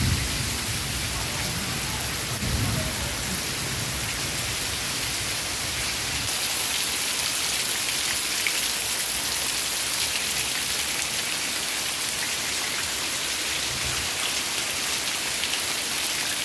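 Heavy rain pouring steadily onto waterlogged ground and puddles: an even hiss that becomes brighter and harsher about six seconds in.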